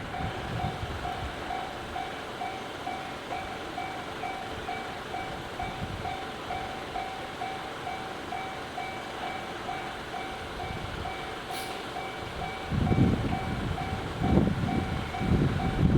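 Japanese railway level-crossing alarm, the JR standard electronic bell, ringing in an evenly repeating two-tone ding. About 13 seconds in, the rumble of a passing train comes in over it.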